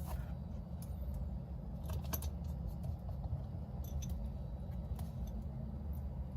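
Small, scattered clicks and taps of hand tools on phone parts, with a short cluster of them about two seconds in, over a steady low hum.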